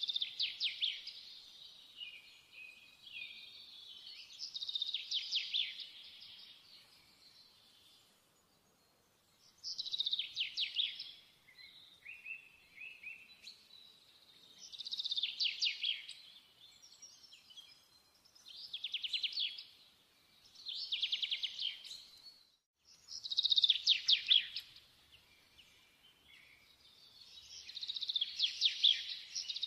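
A small songbird singing: bursts of rapid trills, each a second or two long, repeating every few seconds.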